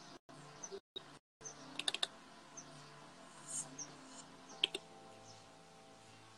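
Faint clicks and taps of a smartphone being handled, with the sound cutting in and out during the first second and a half. Under them run faint music with held notes and a few faint high chirps.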